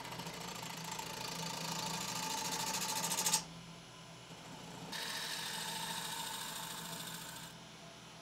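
Wood lathe running with a steady hum as something is held against the spinning sycamore, giving a hissing scrape. The scrape builds for about three seconds and stops abruptly, then returns for another two and a half seconds.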